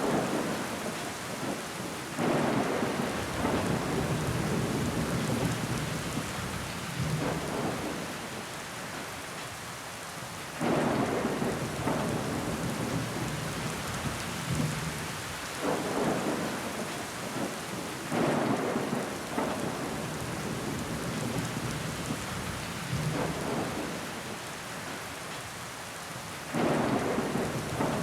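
Steady rain pattering on window glass, with water running down the pane. Every few seconds the rain swells suddenly louder, then eases off.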